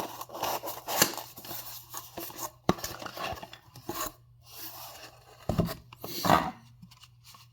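A cardboard box and its packing being opened and handled by hand: irregular rustling, scraping and tearing with sharp clicks, a few louder bursts near the middle.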